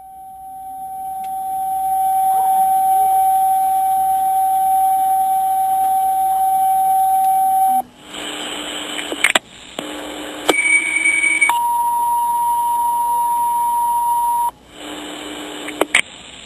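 Fire station dispatch alert tones over the station speakers: one steady tone held for about eight seconds, then a run of shorter tones at different pitches with clicks between them, signalling a call for the station to respond.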